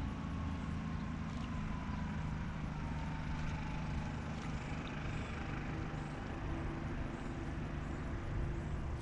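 A steady low motor hum, with a faint whine that slowly falls in pitch over the first few seconds.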